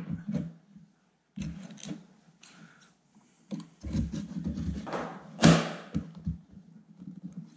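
Plastic clicking, scraping and knocking as the OEM plastic cover of an Abarth 595 side mirror is pried at its locking tabs, with one sharp, loud knock about five and a half seconds in.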